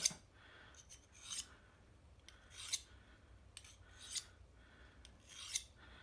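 Handheld carbide 'poker chip' knife sharpener drawn lightly along a pocket knife blade: five short, high scrapes, about one every second and a half, as light-pressure passes honing the edge.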